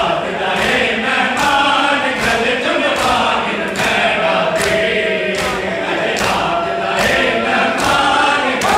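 Men's voices chanting a Punjabi noha (mourning lament) together, with rhythmic open-hand chest-beating (matam) slaps landing a little more than once a second.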